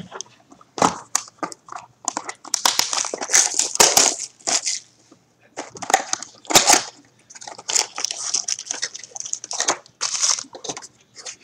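Foil-wrapped trading card packs crinkling and a cardboard mini box being handled, in irregular rustling bursts with a few sharp clicks.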